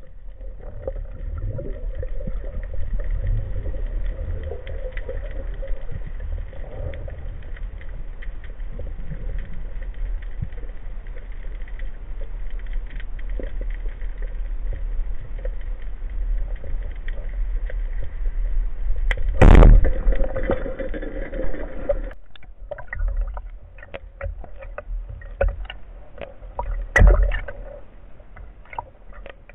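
Underwater rumble with a faint steady hum, broken about two-thirds of the way through by a single loud crack of a wooden band-powered speargun firing. After it the hum stops and scattered clicks and crackles follow, with one louder knock near the end.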